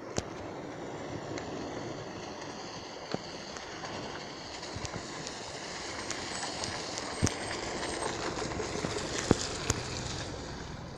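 Mountain bike rolling over a wet, muddy dirt road: a steady hiss of tyres through mud and water that swells in the second half, with a few sharp clicks and rattles from the bike over bumps.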